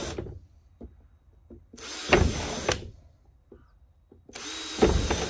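Power drill boring holes through a plastic pipe about 3 cm across, in short runs of about a second each: one ends just after the start, then two more follow about two and a half seconds apart. The pipe is being perforated to make a screen for a water well.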